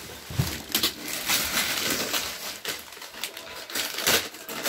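Wrapping paper crinkling and tearing in irregular rustles and rips as a child unwraps a present.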